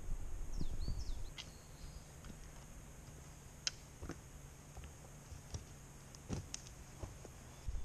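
Footsteps and trekking-pole taps on a rocky forest trail: scattered sharp clicks and scuffs, after a low rumble in the first second. A few short bird chirps about half a second to a second in.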